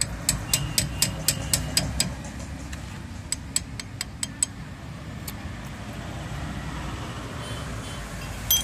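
Quick ringing metal-on-metal hammer taps on a steel pipe set against a brake wheel cylinder, driving out a seized, swollen piston seal kit. First comes a fast run of about eight taps, then six more a couple of seconds later and a single tap near the end. A steady rumble of passing road traffic runs underneath.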